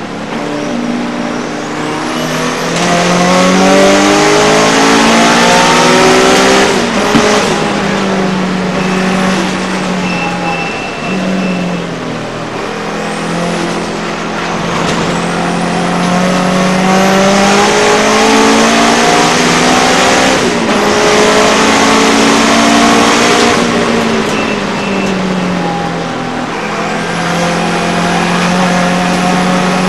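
Racing car engine heard from inside the cockpit, pulling hard with its pitch climbing through the revs, then dropping away sharply as it lifts off or shifts, several times over.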